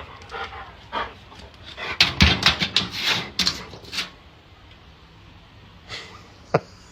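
A dog making a run of quick, noisy puffing and scuffling sounds about two seconds in, lasting about two seconds, then going quieter, with one short sharp click near the end.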